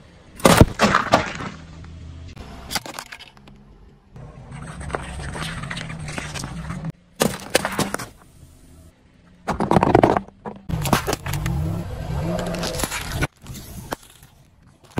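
A car tyre rolling over and crushing small objects on asphalt, heard as several short takes. Each has sudden cracks, pops and crunches over a steady low rumble, and the loudest crushes come about half a second in and again about ten seconds in.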